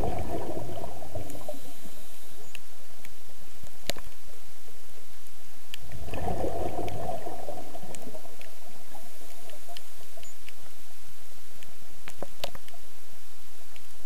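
Underwater sound heard through a camera housing: a scuba diver's exhaled bubbles bubbling out of the regulator twice, near the start and again about six seconds in, each lasting a second or two. Between them there is a steady hiss with a few sharp clicks.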